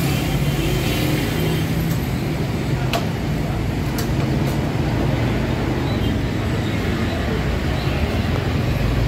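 Steady low hum of an idling vehicle engine amid street traffic, with two sharp clicks about three and four seconds in.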